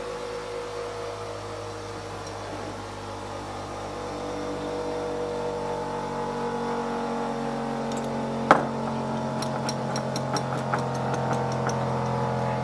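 A small hammer knocks once sharply about two-thirds of the way through, then taps lightly about four times a second, driving a drill-rod spoke into a steel flywheel rim. A steady machine hum runs underneath, growing somewhat louder midway.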